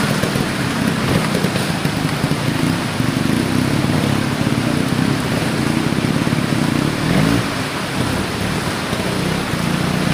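Trials motorcycle engine running at low revs with a brief rising rev about seven seconds in.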